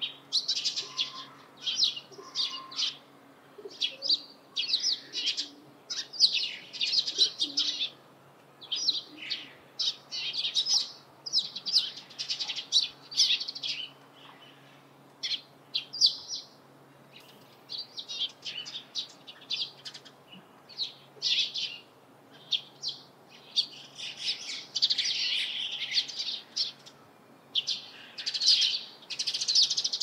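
Eurasian tree sparrows and white-cheeked starlings calling: many short, high chirps in quick runs, one burst after another with brief pauses.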